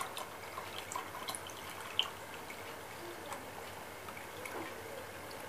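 A thin stream of water from an aquarium canister filter's outlet hose trickles into a plastic measuring jug as it fills, with small irregular splashes and plops and one sharper tick about two seconds in.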